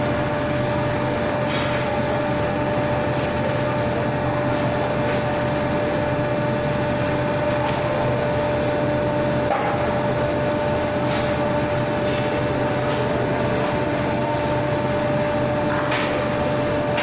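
Steady industrial machine noise from a homogenizing furnace plant, with a constant mid-pitched whine over a rushing bed and a few faint knocks and clicks.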